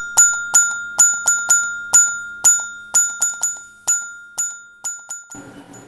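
Countdown-timer sound effect: a run of bright, bell-like chime strikes, two to three a second in an uneven rhythm, over a steady high tone. The strikes grow fainter toward the end and stop shortly before the narration resumes.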